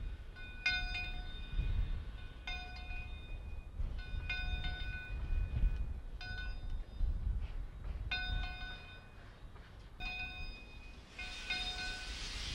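Steam locomotive bell ringing with steady swinging strokes, one about every two seconds, over the low, uneven chuffing of the engine working. About eleven seconds in a loud hiss of steam joins it, from steam blowing out at the cylinders.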